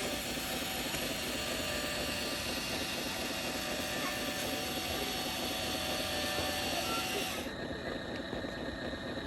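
Electric motors and gearboxes of remote-control construction machines whirring steadily, with thin whines over a dense mechanical rumble; the higher part of the sound drops away abruptly about seven and a half seconds in.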